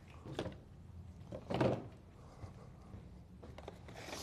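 A few short knocks, with a louder thud about a second and a half in: a plastic mixing bucket being set down and handled on a plastic-sheeted work table.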